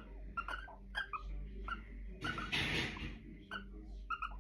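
Barn owl making a string of short, squeaky calls, with a breathy hiss about two seconds in.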